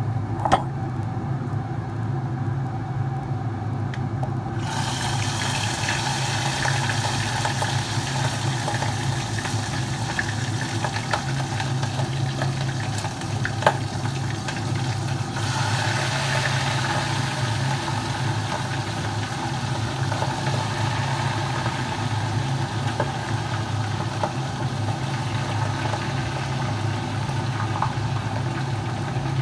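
A steady low hum from a running motor or fan, joined about four and a half seconds in by a steady hiss. A couple of sharp clicks stand out, one near the start and one about halfway.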